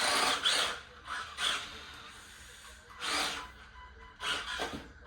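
Small electric RC drift car running in short bursts, motor whirring and tyres scrubbing, about four bursts.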